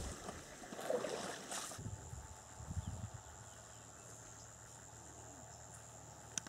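Footsteps swishing and splashing through wet grass and shallow water for the first two seconds, with a few quieter rustles soon after. Then a faint, steady outdoor background with a thin high steady tone.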